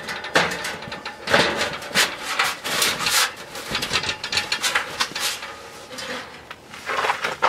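Metal stovepipe sections of a tent wood stove being twisted and pushed together, the sheet metal scraping and grating in irregular strokes with a few knocks.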